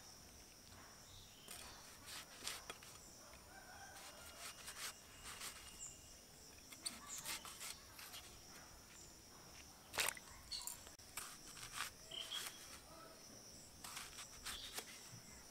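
Bitter gourd being sliced into strips on a bonti's iron blade: faint, scattered crisp cuts and clicks, the sharpest about ten seconds in. A steady high insect drone runs underneath.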